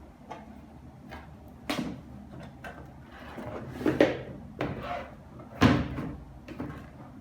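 Packaging being handled and opened: several sharp knocks and thumps, the loudest about five and a half seconds in, with rustling in between.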